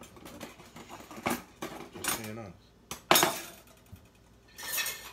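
Cutlery and dishes clinking and clattering on a kitchen counter: a handful of sharp clinks, the loudest about three seconds in, and a short scrape near the end.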